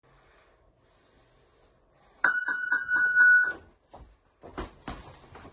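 Boxing round timer sounding its start-of-round bell: a loud, high, fast-pulsing electronic ring about two seconds in, lasting about a second and a half. Then the first dull thuds of gloved punches and footwork near the end.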